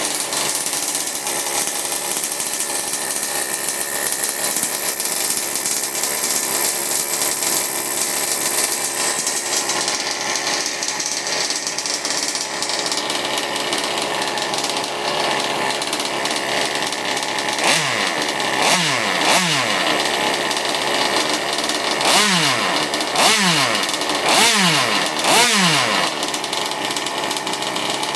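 Clone Zenoah QJ 26cc single-cylinder two-stroke gas engine running steadily, then revved in about six quick throttle blips, each a sharp rise in pitch, in the second half.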